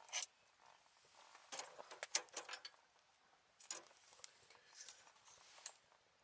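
Small objects being handled: irregular light clicks, clinks and rustling, with a cluster of sharper clicks about two seconds in.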